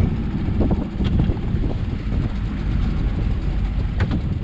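Wind buffeting the microphone on a small fishing boat at sea: an uneven low rumble, with a couple of short knocks, one about a second in and one near the end.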